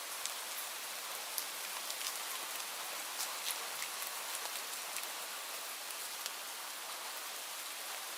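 Light rain falling: a steady even hiss with many small, sharp drop ticks scattered through it.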